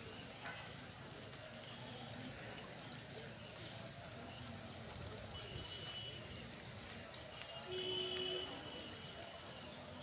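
Faint trickling and dripping of river water running off a large bamboo-framed lift net as it is hauled up out of the water. A short whistle-like call sounds about eight seconds in.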